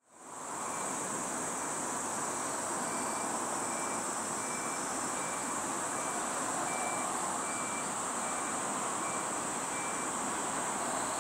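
Steady high-pitched chorus of summer insects, with a short high note repeating a little under twice a second and an even rushing noise underneath. The sound fades in at the start.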